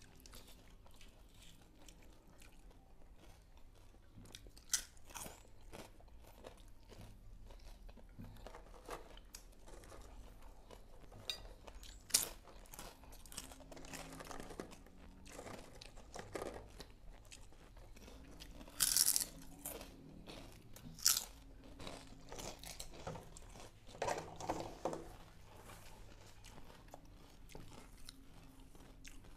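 Close-up eating sounds: chewing and crunching of fried mackerel and rice eaten by hand, with scattered sharp crunches and a few louder clicks or knocks.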